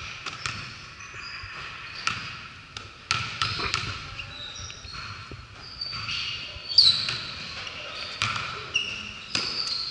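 Basketball being dribbled on a hardwood gym floor at the free-throw line, a series of separate bounces, with short high sneaker squeaks, the loudest just before 7 seconds in.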